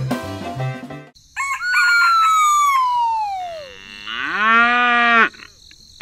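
Background music stops about a second in. A rooster crows, one long call falling in pitch, and then a cow moos, a low call that rises and holds for about a second.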